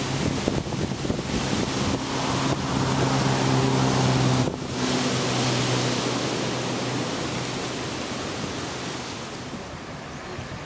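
Hurricane wind blowing hard, a loud steady rush with wind buffeting the microphone. A low steady hum runs under it for the first half and drops out about four and a half seconds in.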